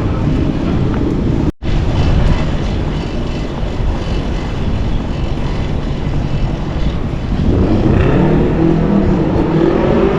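City street traffic noise, dense and continuous, with a very brief cut in the sound about a second and a half in. Near the end an engine grows louder, its pitch gliding as a vehicle passes close by.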